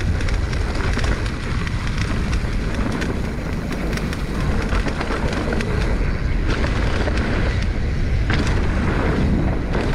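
2021 Giant Trance X 29 mountain bike descending a dirt trail: tyres rolling over rough ground with constant rattling and clicking from the bike, over a heavy low rumble.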